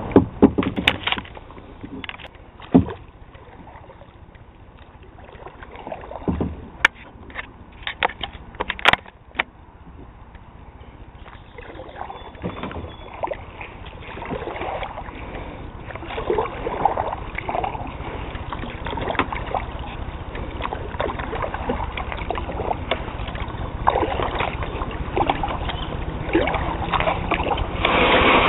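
Kayak being paddled on a slow river: paddle strokes with water splashing and dripping off the blades, growing louder through the second half. A handful of sharp knocks in the first ten seconds.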